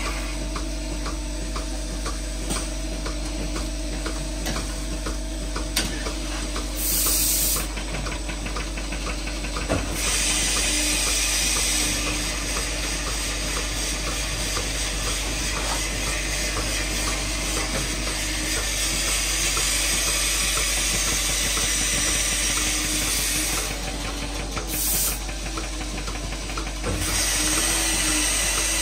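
Automatic milking robot working under a cow, its arm hissing in a short burst, then a long stretch of several seconds, then further short bursts, over a steady mechanical hum with faint clicking.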